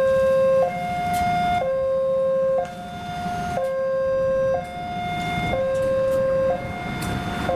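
Railway level-crossing warning alarm sounding a steady two-tone hi-lo signal, each tone held about a second, which warns that a train is approaching. A low rumble runs beneath it.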